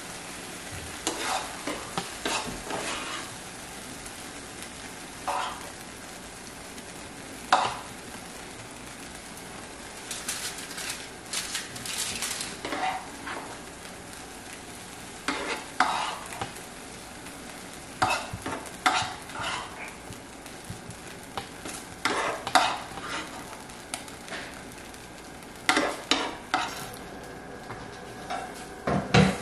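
A metal spoon scraping and tapping in a nonstick frying pan as mushroom filling is scooped out, in short clusters every few seconds, over a steady sizzle from the hot pan.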